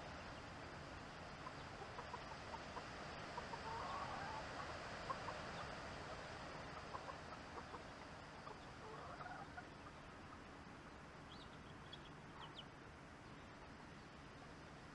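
Backyard chickens clucking softly: scattered short calls, busiest a few seconds in and again past the middle, over a steady hiss.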